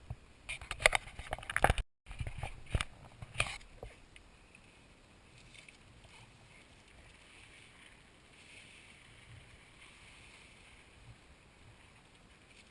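A quick run of sharp knocks and clattering for about three seconds, broken by a brief dropout near two seconds in, then only faint background noise.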